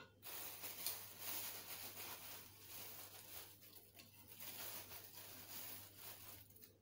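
Faint, soft rustling of herbs being rubbed and crumbled between fingers and sprinkled onto a bowl of marinade.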